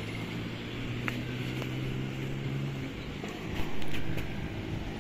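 A steady low motor hum that stops about three seconds in, then a brief low rumble near four seconds.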